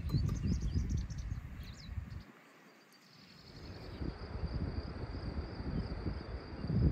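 Open-air mountain meadow ambience: wind rumbling unevenly on the microphone, a few short bird chirps in the first two seconds, and a steady high insect buzz from about halfway on.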